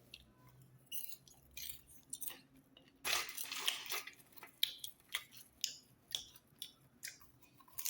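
Someone chewing crunchy home-made popcorn: a run of irregular crunches at uneven intervals.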